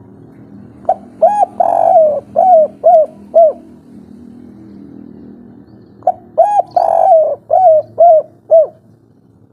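Spotted dove (tekukur) singing its 'kuk 3' coo twice: each phrase is a couple of short notes, one long drawn coo, then three short clipped notes. A steady low hum lies underneath.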